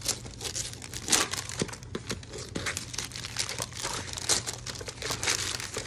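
Gift wrapping paper crinkling and tearing as a present is unwrapped by hand, in irregular rustles with a few sharper crackles about a second in and about four seconds in.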